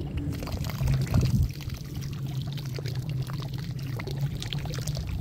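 A Saipa Pride car's 12-volt electric fuel pump, rigged as a water pump, running with a steady low hum while a jet of water from its hose nozzle splashes onto the pond. The pump is half burnt out, which the uploader says weakens its pressure and reach.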